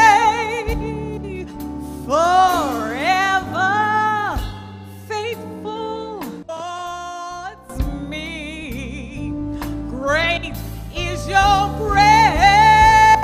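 Gospel vocal group singing a slow song: a lead voice with wavering runs over sustained low notes. The music softens in the middle and swells again near the end.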